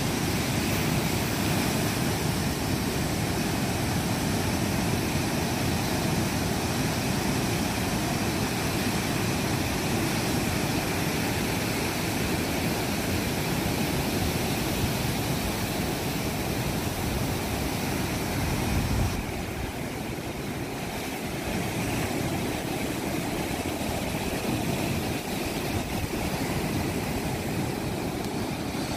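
Heavy surf stirred up by an approaching hurricane, breaking and washing ashore in a steady rush, with wind buffeting the microphone. The sound drops a little about two-thirds of the way through.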